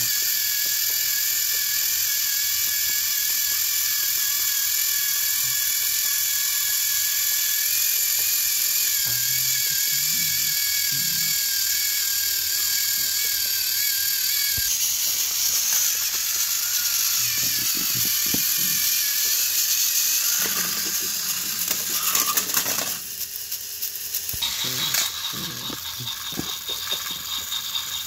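Small battery-powered toy train engines' electric motors whining and their gears rattling as two engines push head to head against each other. The sound changes about halfway through and again near the end.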